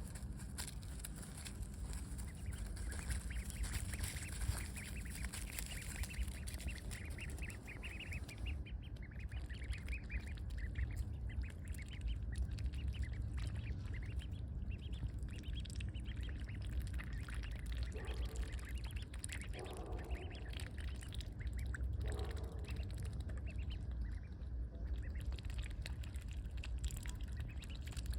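Ducklings peeping in quick, short high calls, with three lower quacks a little past the middle, over a steady low rumble.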